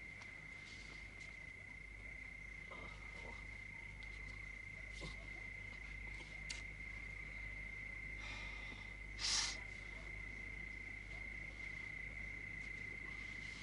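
Crickets chirring steadily at one high pitch, over a low hum. A brief rustle about nine seconds in is the loudest sound, with a few faint clicks before it.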